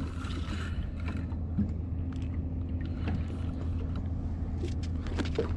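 Boat motor idling with a steady low hum, under a few light knocks and clicks near the end.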